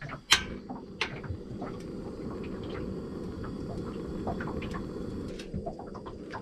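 A sharp click, then another about a second later, followed by a steady low rush: a gas burner lit and burning under a pan of oil heating for frying fish.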